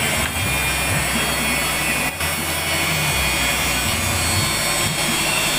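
Vertical milling machine's end mill cutting the edge of a thick white plastic sheet as it is fed by hand, a steady grinding, shaving sound over the hum of the machine's motor.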